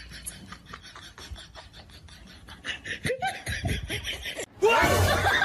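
A person laughing over a fast, even clicking, then an abrupt switch to much louder voices and noise near the end.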